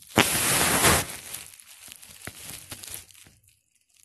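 Crinkling and rustling of packaging handled right at the microphone: loudest in the first second, then lighter crackling with a few clicks that dies away about three and a half seconds in.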